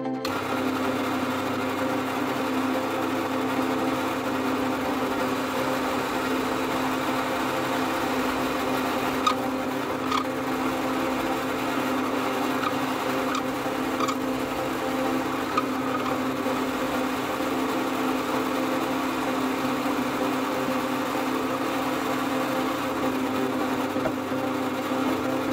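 Benchtop drill press motor running steadily while it bores into a block of wood, with a few faint clicks near the middle.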